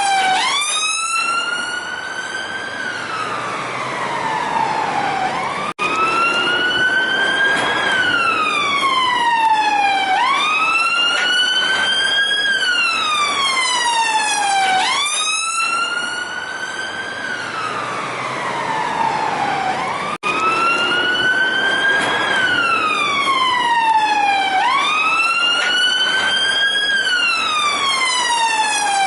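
Police car siren on the wail setting: the pitch climbs quickly, then falls slowly, repeating about every five seconds. Two very brief dropouts break it, about six seconds in and again about twenty seconds in.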